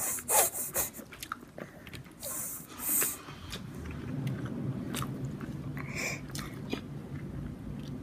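An infant eating in a high chair: chewing and mouth noises, with a few scrapes and taps of his hands on the wooden table in the first second and a short breathy huff about two and a half seconds in.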